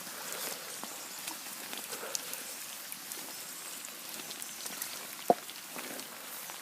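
Heavy rain falling, with many individual drops ticking close to the microphone. A single sharp tap about five seconds in.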